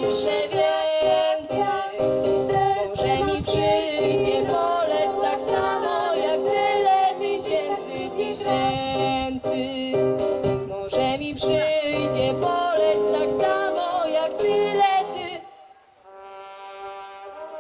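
Women and girls singing a song together into microphones, with instrumental accompaniment. The singing stops about fifteen seconds in, and softer held instrumental notes follow.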